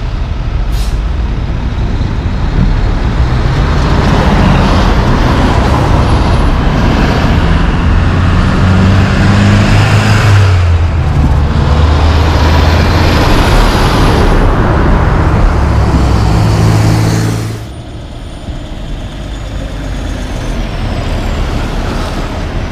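Class 8 semi-truck diesel engines pulling through an intersection at close range, the engine note climbing and then stepping down as the driver shifts gears, over tyre and road noise. After about 17 seconds it drops suddenly to a quieter truck going by.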